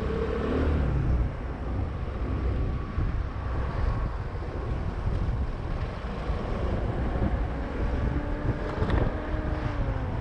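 Car being driven: steady engine and road rumble, with a faint whine that falls slightly in pitch near the end.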